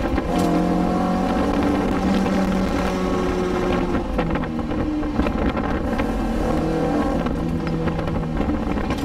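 Cabin sound of a 1986 Toyota MR2 MK1's mid-mounted 1.6-litre 20-valve 4A-GE engine with individual throttle bodies, running under way. Its note steps up and down as the revs change.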